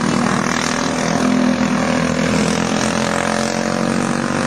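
Go-kart engines running at racing speed, their pitch rising and falling slightly as the karts go around the track.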